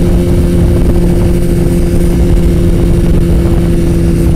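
Motorcycle engine running at a steady cruise with an unchanging pitch, under a heavy low wind rumble on the helmet microphone.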